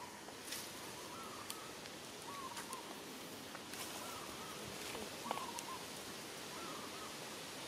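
Short animal calls repeating about once every second or so, each a brief hooked note, over a steady outdoor hiss with a few faint clicks.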